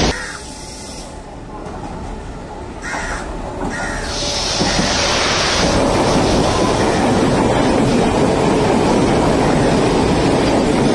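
Passenger train running past a station platform: after a quieter opening, the rumble of its wheels on the rails builds about four seconds in and then holds steady.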